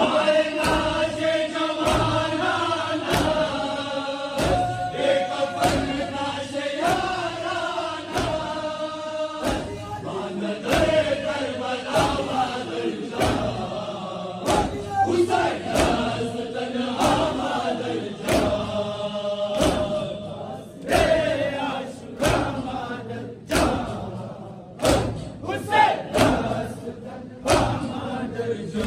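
A large crowd of men chants a Shia mourning lament (nauha) in unison, keeping time with rhythmic chest-beating (matam). The chest-beating is a steady beat of sharp hand slaps. Near the end the singing thins and the slaps stand out more.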